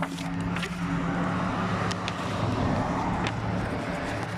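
Road traffic noise: a motor vehicle engine running close by with a steady low hum and a rushing haze that swells through the middle, with a few light clicks.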